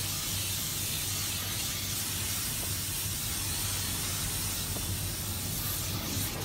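Automatic car wash at work on the windshield, heard from inside the car: rotating cloth brushes and water spray make a steady hiss, with a low steady hum of the wash machinery underneath.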